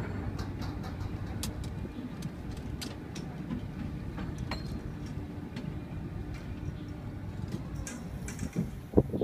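Steady low rumble of a ship's engine with wind across the deck, with scattered light clicks and knocks and a sharper knock near the end.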